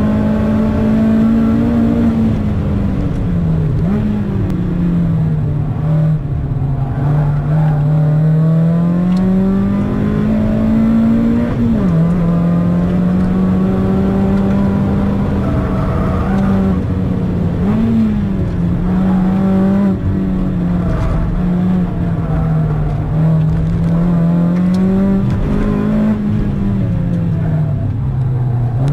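Mazda MX-5's four-cylinder engine heard from inside the cabin, driven hard on a lap: its revs climb and fall again and again, with sudden jumps in pitch at gear changes, over steady road and tyre rumble.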